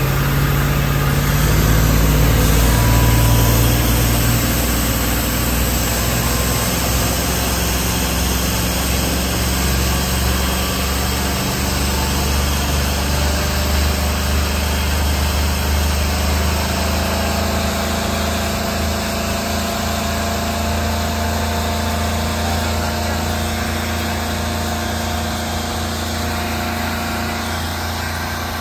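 Freshly overhauled 2007 MerCruiser 8.1 Horizon V8 gasoline inboard engine running steadily under way, heard through the open engine hatch. It swells slightly a few seconds in, then holds an even note.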